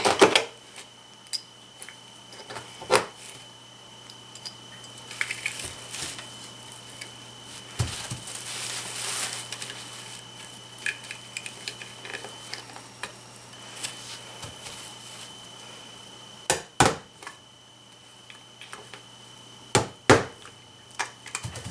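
Handling sounds of small hand tools and screws on a plastic HO model railway switch machine: scattered sharp clicks and knocks, a few in quick pairs, as screws are taken out and refitted. A faint steady high tone runs behind them.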